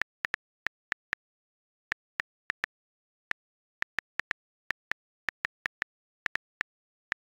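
On-screen keyboard key-press clicks on an iPad, one short sharp click per tapped key, at an uneven typing pace. There are brief pauses about a second in and again around three seconds, with dead silence between clicks.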